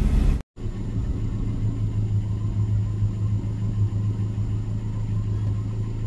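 Vehicle engine running, a steady low drone with road-type rumble, heard after an abrupt cut about half a second in.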